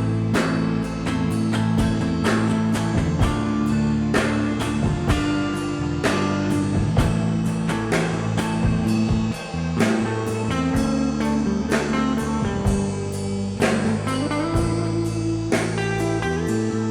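Live band playing an instrumental passage: guitar over a steady drum beat and bass.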